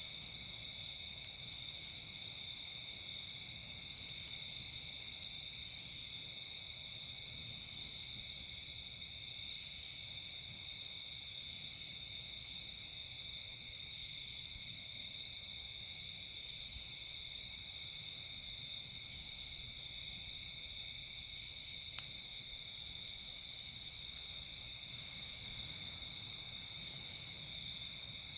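A steady chorus of night insects, with softer high pulses every couple of seconds. Near the end come two sharp pops about a second apart, typical of a crackling campfire.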